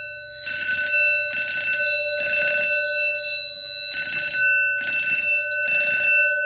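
Fire alarm system sounding in alarm: notification appliances blaring in the code-3 temporal pattern, three bursts then a pause, twice, over a steady ringing tone.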